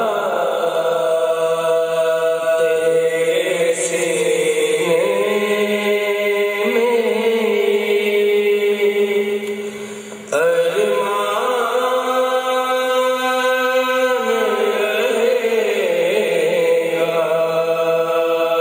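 Men's voices chanting a noha, an unaccompanied Urdu lament, through microphones, in long held, wavering notes. The voices fall away about ten seconds in and come back together a moment later.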